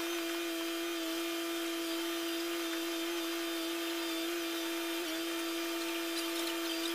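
Truck-mounted knuckle-boom crane's engine and hydraulics running with a steady motor whine, one held pitch with overtones that wavers briefly about five seconds in.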